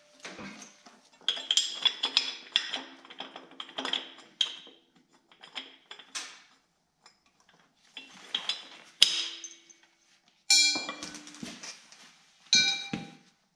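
Steel pieces of a homemade hitch-mounted tire bead breaker clanking and scraping as a bracket is slid into a trailer-hitch receiver and a long square-tube steel lever is handled. There are irregular sharp metal clanks, some ringing briefly; the loudest comes about nine seconds in.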